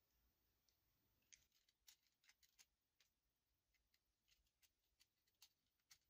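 Near silence, with faint, irregular clicks and light rustles from about a second in, as fingers handle wires and slide heat-shrink sleeving onto them.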